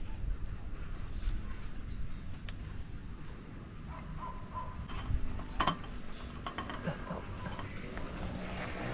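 Night chorus of insects such as crickets: a continuous, steady high-pitched trill over a low rumbling background, with a couple of faint knocks a little past halfway.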